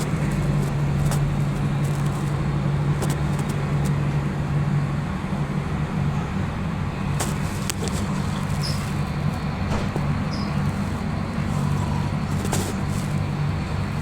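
Steady low mechanical hum, unbroken, with a few faint clicks over it.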